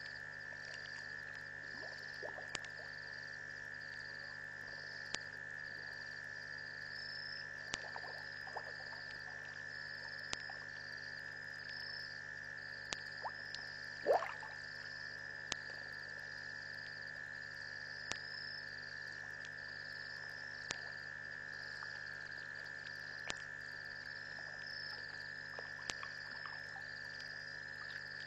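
Night chorus of frogs and insects at a waterhole: a continuous steady high drone with a pulsing, higher trill repeating over it. A few faint clicks are scattered through, and one short, louder call with a rising pitch comes about halfway through.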